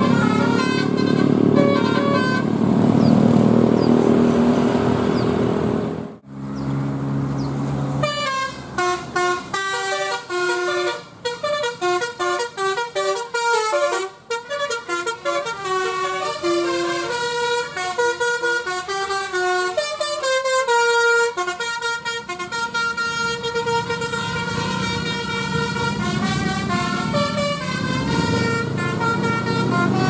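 A bus's engine running as it goes by. After a short break, a telolet Basuri musical bus horn plays a quick tune of short stepped notes for about twenty seconds. Engine noise comes back near the end.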